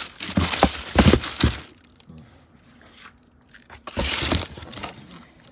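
Food packaging crinkling and rustling as it is handled, in two spells: one in the first second and a half and another about four seconds in.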